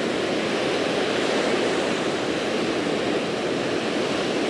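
Ocean surf breaking and washing over the sand in a steady, unbroken rush.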